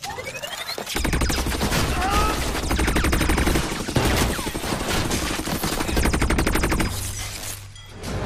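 Rapid automatic gunfire, sustained volleys of shots for about six seconds, stopping shortly before the end.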